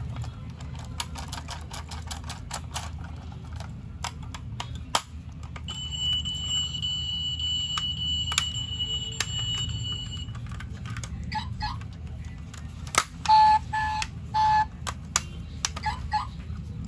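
Die-cast Mazda RX-7 model car being handled: small clicks and taps of its plastic base, doors and hood. A steady high electronic tone sounds for several seconds midway, and three short, loud electronic beeps follow in the latter part.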